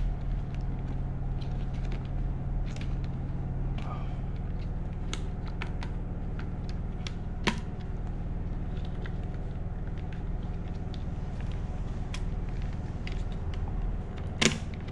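Scattered small clicks and taps of a gel blaster's gearbox being carefully prised apart by hand, with one sharper click about halfway through, over a steady low hum.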